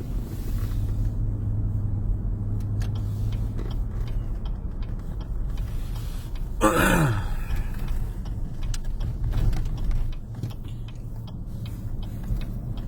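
A car interior while driving: a steady low engine and road hum with small rattling clicks. About seven seconds in comes one short sound that falls steeply in pitch.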